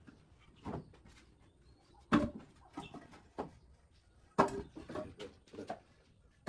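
A series of irregular knocks and clatters, the loudest about two seconds in and again just after four seconds, with lighter knocks between.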